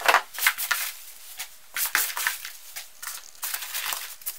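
Foam packing peanuts in a cardboard box being scooped and pushed about by hand, in irregular bursts of rustling, loudest at the start.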